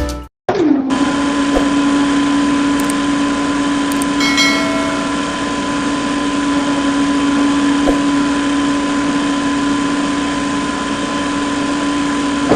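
Small DC hobby motor running steadily with a high whine over a mechanical hiss. Its pitch drops and settles just after it starts, about half a second in.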